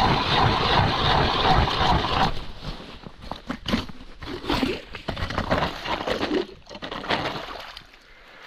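Ice auger grinding through the ice, a dense, steady rasp that stops about two seconds in. It is followed by irregular crunching and sloshing of slush and water in the freshly drilled hole.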